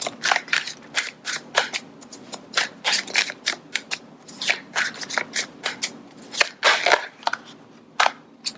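A deck of tarot cards being shuffled by hand: an irregular run of short, crisp card swishes and snaps, a few each second.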